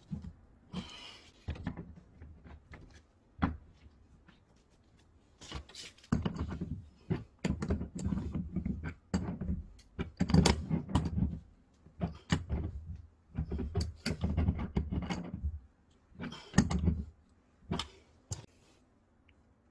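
Handling noise of a wrench being forced on a brass pipe fitting: irregular metal clicks and knocks with close rustling of clothing, heaviest in the middle. The fitting, set in cement in the wall, holds fast against the turning.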